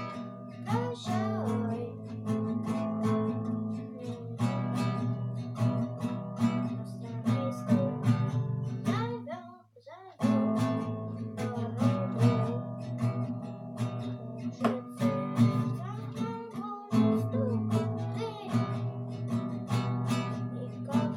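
Acoustic guitar strummed in a steady chord rhythm, one last sung word near the start, with a brief stop about halfway through before the strumming picks up again.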